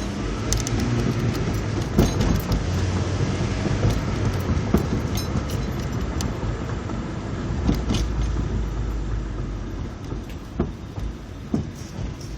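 2002 Acura RSX Type S running with a low, steady drone, while sharp clunks from the suspension sound several times, more often near the end.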